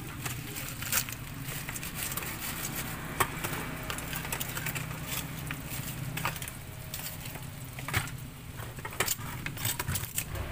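Metal tongs clicking and scraping against a steel tray and bowls as crisp fried batagor pieces are picked up and dropped into a plastic bag, which crinkles. The sharp clicks come irregularly over a low steady hum.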